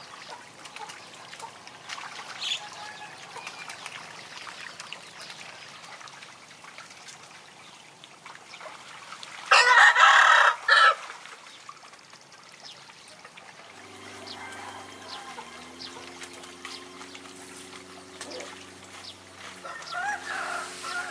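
A rooster crowing once, loud, about ten seconds in, lasting about a second and a half. A steady low hum sets in a few seconds later.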